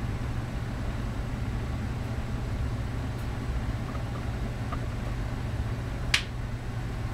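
Steady low background hum, with one sharp click about six seconds in.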